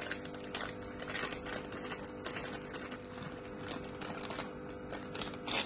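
Plastic packet of maida (flour) crinkling and rustling in the hands as the flour is shaken out of it into a steel bowl, with a louder rustle near the end.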